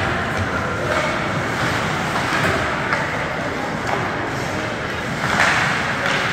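Steady background noise of an indoor ice hockey rink during a game, with a brief hissing scrape about five seconds in.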